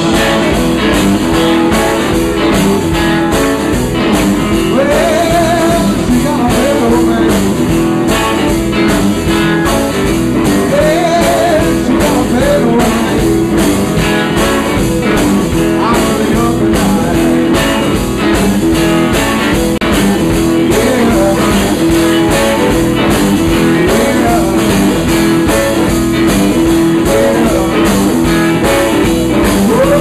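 Live blues band playing: electric guitars, bass and drum kit with a steady beat, and a male lead singer singing at times.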